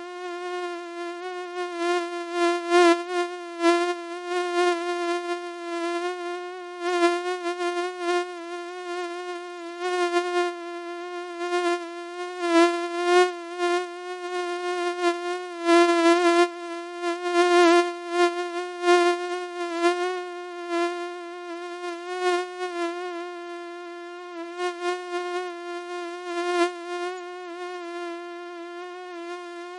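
Mosquito buzzing in flight: one steady whine with many overtones, its pitch wavering slightly and its loudness swelling and dropping again and again.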